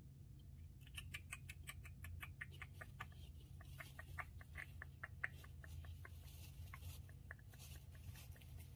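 Syrian hamster nibbling at the tip of a seed-stick treat: faint, quick, regular clicks, about five or six a second, that thin out after about six seconds.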